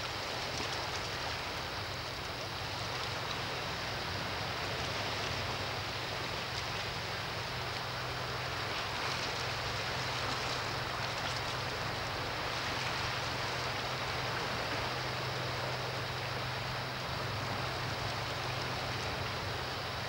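Calm sea washing gently against shoreline rocks in a steady, even wash of water sound, under a constant low hum.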